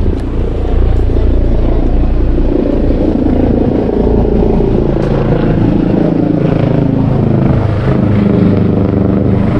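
A motor vehicle's engine running on the road, with a steady low rumble; its pitch rises and falls from about halfway through.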